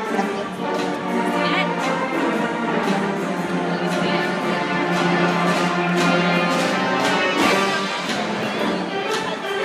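Mighty Wurlitzer theatre pipe organ playing music in long, sustained chords with an orchestral, brassy tone.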